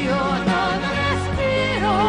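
Live 1980s pop ballad: a woman singing an Italian melody with vibrato over a band of acoustic guitar, piano, bass and drums.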